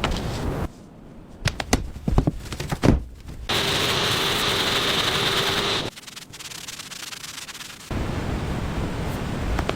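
Hull restoration work sounds in abrupt edited cuts: a few sharp knocks and scrapes, then steady hissing sanding with a faint hum that cuts off suddenly, and after a quieter stretch more sanding noise near the end.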